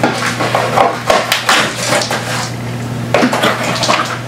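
A cardboard box being handled, its flaps and contents moved about: irregular light clacks, scrapes and rustles, over a steady low hum.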